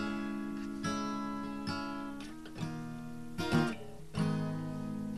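Acoustic guitar strummed, with a chord struck about every second and left ringing, between sung verses.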